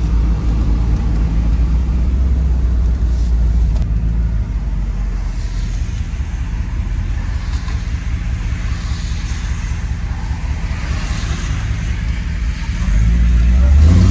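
1992 Chevrolet Camaro Z28's V8 engine heard from inside the cabin while cruising: a steady low drone with road and tyre noise. Near the end the engine gets louder and its pitch climbs as the car accelerates.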